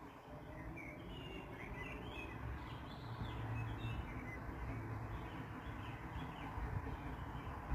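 Small birds chirping in short, repeated calls over a low steady rumble.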